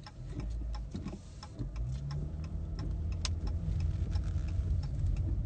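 Car turn-signal indicator ticking steadily inside the cabin of a Chrysler, over the low hum of the car running, which grows louder about two seconds in.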